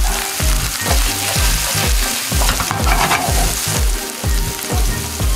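Sliced garlic and green chili sizzling steadily in oil in a frying pan, sautéed over medium heat so the garlic softens and flavours the oil without burning. Background music with a steady beat plays underneath.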